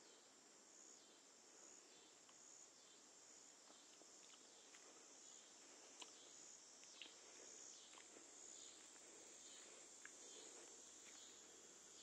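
Faint insects chirping high and steady in a pulsing chorus, with soft footsteps through grass and a few small clicks.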